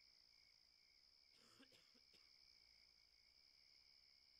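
Near silence: a dead pause with only a very faint, steady high-pitched hum and a few faint ticks about a second and a half in.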